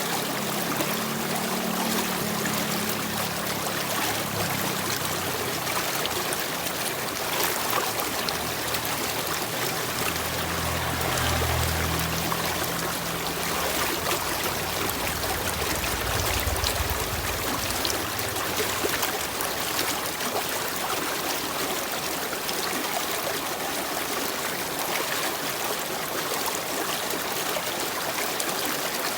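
Stream water flowing and trickling in a steady rush. A faint low rumble comes in twice underneath, near the start and again around the middle.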